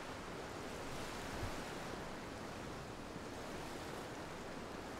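Steady wash of ocean surf, an even hiss, with a faint low thud about a second and a half in.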